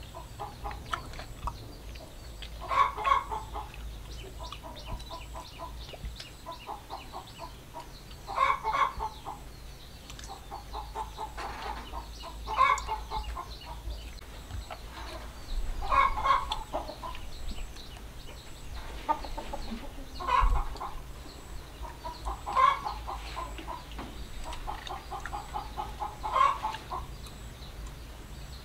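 Bird calls repeating in short bouts of quick pulses, with a louder burst every few seconds.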